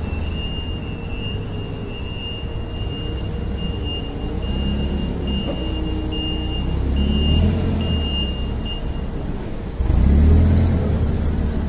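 LPG-powered STILL forklift engine running and revving as it lifts a pallet off a truck and backs away, with its high-pitched warning beeper sounding until about nine seconds in. The engine gets louder near the end as the forklift passes close by.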